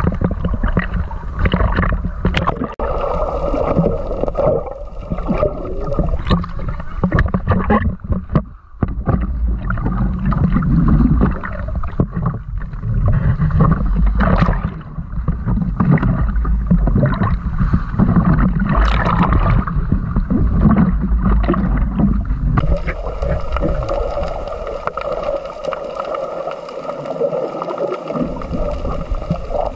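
Sea water slapping and sloshing against an action camera held at the waterline, with irregular splashes and a low rumble. About three quarters of the way in the camera goes under and the sound turns to a steadier underwater hiss.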